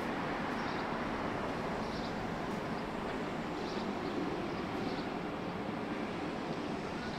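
Steady city street background noise, mostly the drone of passing traffic, with faint light ticks about once a second.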